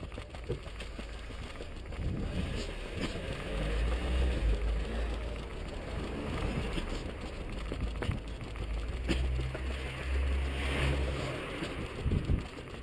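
Motor vehicle engine running close by in street traffic. A steady low rumble comes in about two seconds in and fades out about a second before the end, with a few sharp knocks over it.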